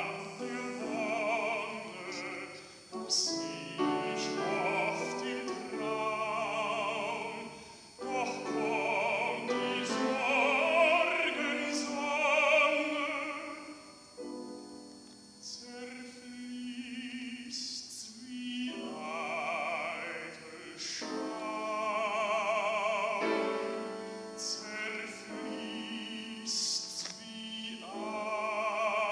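Baritone singing a classical song with vibrato, accompanied on grand piano, in phrases broken by short breaths. The music goes quieter for a few seconds about halfway through.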